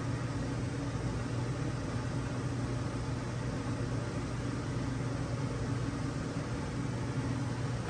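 A steady machine hum with a low tone, unchanging throughout.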